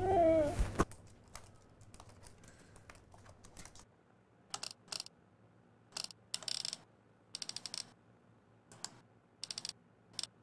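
A young woman's brief distressed whine, then typing on a laptop keyboard in several short bursts of quick keystrokes with pauses between.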